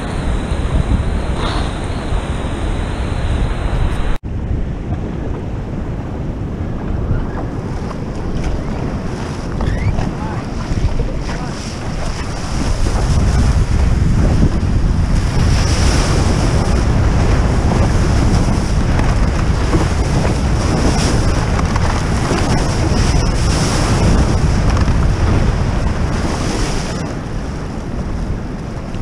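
Wind buffeting the microphone of a camera mounted on a stand-up paddleboard's nose, over the rush and splash of water along the board. There is an abrupt break about four seconds in, and the wash grows louder from about halfway through.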